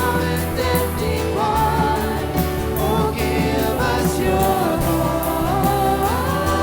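Live worship band and singers performing a slow worship song: held sung notes that glide between pitches over a steady drum and cymbal beat.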